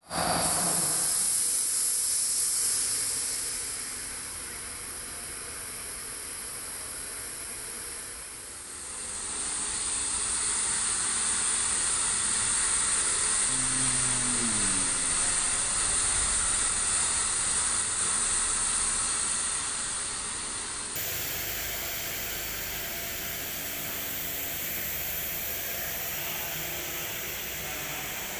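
CNC milling machine at work: a steady hissing noise, changing abruptly about nine and twenty-one seconds in.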